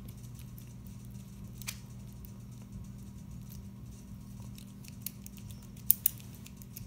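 Lock pick working inside a small pin-tumbler lock cylinder: faint scattered metallic ticks and scraping, with two sharper clicks about six seconds in.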